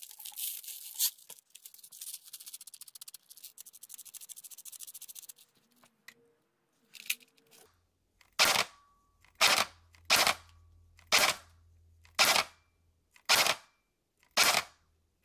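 BBs rattle as they are poured from a bottle into an airsoft magazine. Then a stock Magpul PDR-C airsoft electric gun, a spring-and-piston gearbox gun, fires seven single shots about a second apart through a chronograph.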